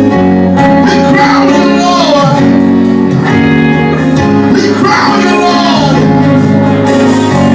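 Music with singing: voices carrying a melody over sustained accompaniment, loud and continuous.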